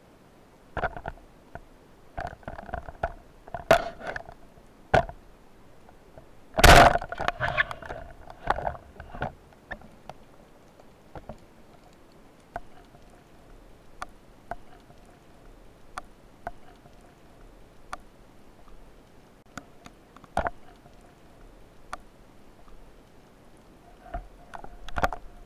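Underwater handling noise picked up through a speargun-mounted camera's housing: scattered muffled knocks and clicks, with a louder clattering burst about seven seconds in.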